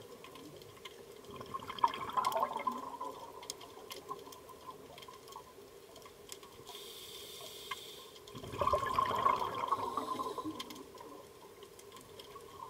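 Scuba diver breathing underwater through a regulator: two bursts of exhaled bubbles gurgling, about six seconds apart, with an inhalation hiss just before the second. A faint steady hum and scattered faint clicks run underneath.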